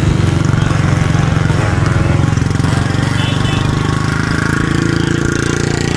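Motorcycle engine running steadily under way, heard from on the bike itself.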